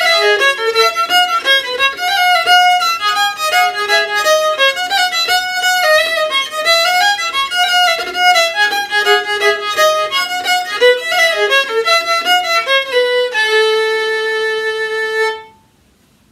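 Solo violin playing a fiddle tune in F major in 4/4 time, with quick runs of bowed notes. Near the end it settles on one long held note, then stops.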